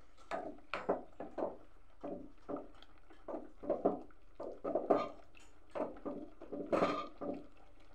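A wooden spatula stirring leafy greens in a pot of hot water, knocking and scraping against the metal pot and sloshing the water in short, irregular strokes two or three times a second, with a louder stroke near the end.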